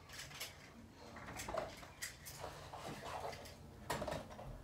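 Faint handling noises: a scattering of light clicks and rustles, as of small hard objects being moved about.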